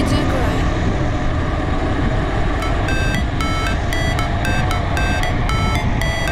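Electronic backing music without vocals over a steady low rumble of wind and tyre noise from a bicycle descending at speed. About two and a half seconds in, a fast run of short high electronic beeps at two alternating pitches starts and keeps going.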